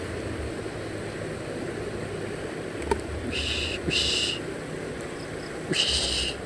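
Three short, high animal calls, each about half a second long: two close together a little past three seconds in and one near the end. A sharp click comes just before them, and a steady outdoor hiss runs underneath.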